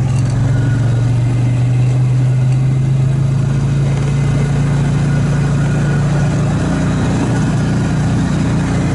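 A vehicle engine running steadily as it is driven slowly, its pitch rising a little past the middle.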